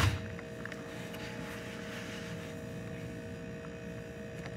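A soft thud right at the start as a pack of baby wipes is set down on the tile floor, then a steady faint electrical hum.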